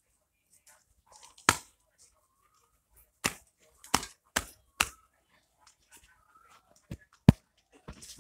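A series of about seven sharp knocks at irregular intervals, the loudest about a second and a half in and near the end.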